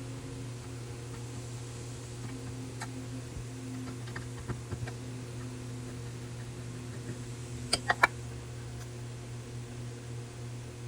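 Steady low hum with scattered sharp clicks. The loudest is a quick cluster of three or four clicks about eight seconds in.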